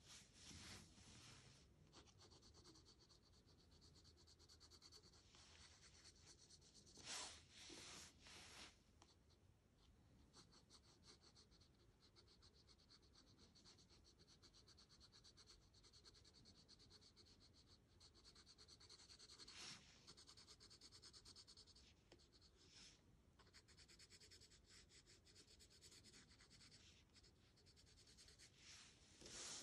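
Graphite pencil scratching faintly across sketchbook paper in quick, repeated shading strokes, with a few louder scrapes.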